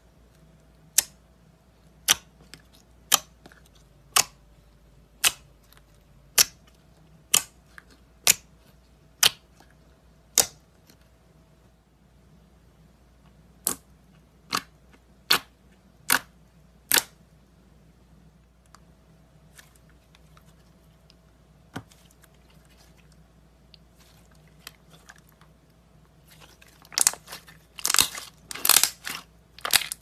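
Clear slime being poked and pressed by fingers, each press letting out a sharp pop of trapped air: about one a second for the first ten seconds, then a quicker run of five a few seconds later. Near the end, a dense wet crackling as the slime is squeezed and squished in the hand.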